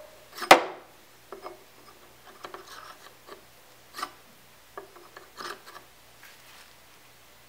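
Steel rod being slid into, lifted out of and set back into a freshly reamed 15 mm hole in a steel block, a test fit of the reamed hole. A sharp click about half a second in, then soft metal-on-metal rubbing and light clinks spread through the rest.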